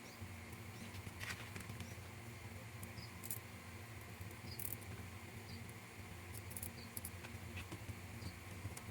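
Faint, scattered clicks and light taps from handling small scale-model parts, over a steady low electrical hum. The sharpest clicks come about a second in, around three seconds and near the end.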